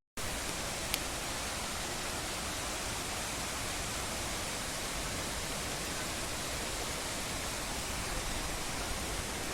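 Waterfall: a steady rush of falling water, with one brief click about a second in.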